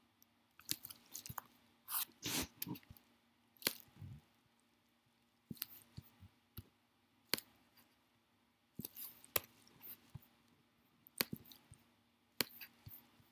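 Irregular clicks and taps from a MacBook's trackpad and keyboard, some single and some in quick clusters, over a faint steady hum.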